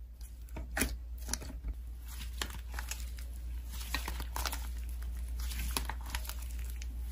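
Hands squishing and stretching slime, making sticky crackling and popping sounds. There are distinct sharp pops in the first couple of seconds, then a denser crackle as the slime is pulled and folded.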